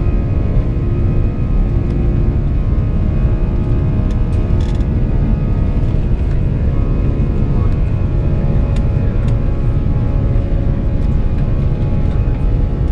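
Cabin noise of an Airbus A340-300 taxiing: a steady, loud low rumble from the rolling aircraft, with the steady whine of its CFM56 turbofan engines at low power.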